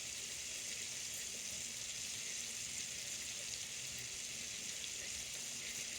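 Steady frying sizzle from a hot pan, with butter melting in it.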